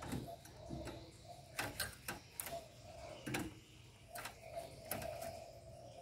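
Caged spotted dove: a string of sharp ticks and taps, with soft low coos between them, the longest about two-thirds of the way through.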